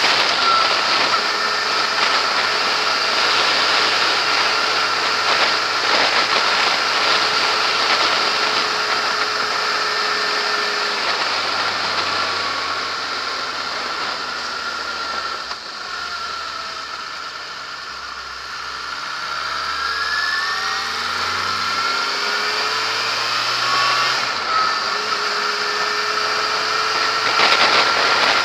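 Yamaha XJ6S's inline-four engine under way, heard with heavy wind and road noise. Its pitch and loudness fall off in the middle as the bike slows, then climb again as it accelerates.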